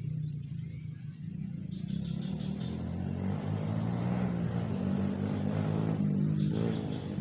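A motor vehicle engine running steadily with a low hum, growing louder from about two seconds in.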